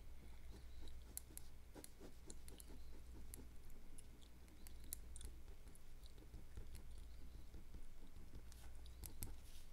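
Gum chewing close to the microphone: irregular soft mouth clicks and smacks over a low steady hum.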